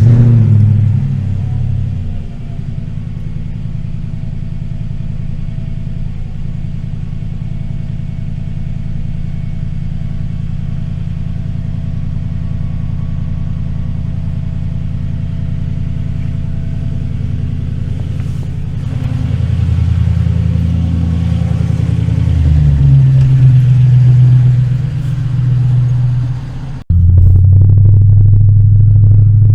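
Mercedes-Benz W220 V8, fitted with an electrically controlled exhaust valve system, starting with a brief loud flare and settling into a steady idle. About two-thirds of the way in the engine speeds up and gets louder, then after an abrupt break near the end it runs on louder and steady.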